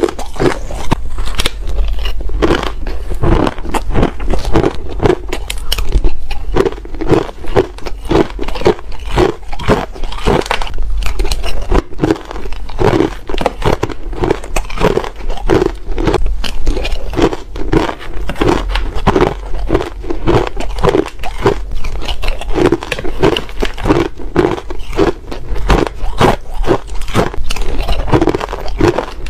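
Close-miked biting and chewing of frosty ice chunks: rapid, squeaky, crunchy crunches in a steady chewing rhythm, over a steady low hum.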